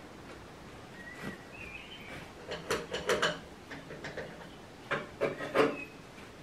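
Irregular knocks, clinks and clicks of someone working around an old tractor, in two short clusters, the loudest in the middle and near the end. A few short high bird chirps come about a second in and again near the end.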